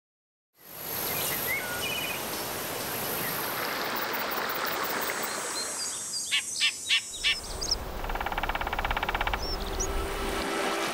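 Woodland ambience: a steady outdoor hiss with birds chirping. A loud series of five evenly spaced bird call notes comes about six seconds in, followed by a quick rattling sound and a low rumble under it.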